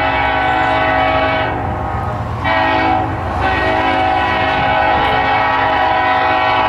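Diesel locomotive air horn sounding a chord over a low rumble, in a long blast that dips briefly about two seconds in and again about a second later, then holds.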